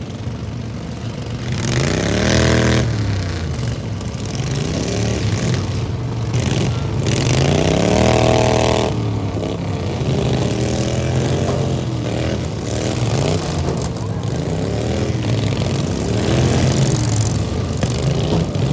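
Several small lawn mower engines revving up and down in a derby, their pitch rising and falling repeatedly, with the loudest surges about two and eight seconds in.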